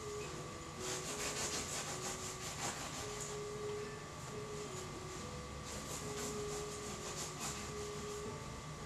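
A palette knife sawing through soft fried doughnuts, cutting them open: a run of quick, scratchy back-and-forth strokes about a second in and another near the end.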